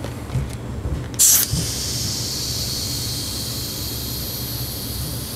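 Compressed air from an air hose hissing steadily into a freshly mounted bicycle tire and tube, inflating it. A short loud blast of air about a second in, then a steady hiss.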